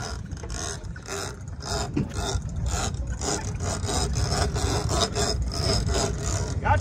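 A rhythmic rasping scrape, about three strokes a second, over a steady low rumble.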